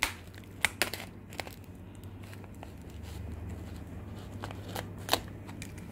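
Utility knife cutting into a bubble-wrapped, taped parcel: scattered sharp clicks and crackles of plastic wrap and tape, a few close together in the first second and a couple more near the end, over a low steady hum.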